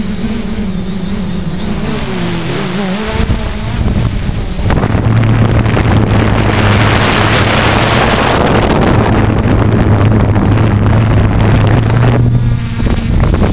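Hexacopter's electric motors and propellers humming steadily, heard from a camera on board, their pitch wavering in the first few seconds as motor speeds change. Wind buffets the microphone from about three seconds in and grows louder.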